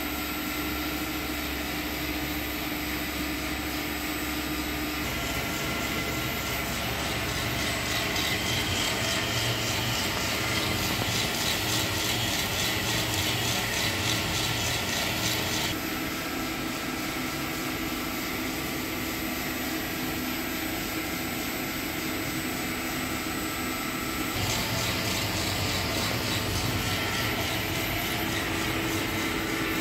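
Drum coffee roaster running mid-roast, its rotating drum and air fan making a steady whir. It grows a little louder for two stretches, about five to sixteen seconds in and again near the end.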